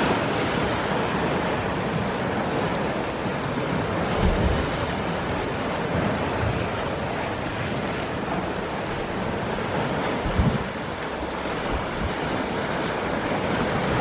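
Sea waves washing and splashing against rocky limestone cliffs, with wind buffeting the microphone and a couple of stronger low rumbles.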